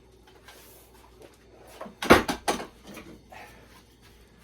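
Plywood pieces knocking and clattering as they are picked up and handled: a quick run of three or four sharp wooden knocks about two seconds in, then a few softer taps.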